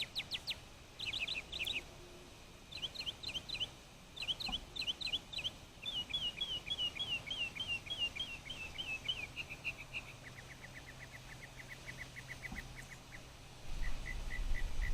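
Songbird singing a territorial, mate-advertising song: quick high notes, each repeated several times before switching to a new phrase every second or two, including a fast even trill. A low rumble comes in near the end.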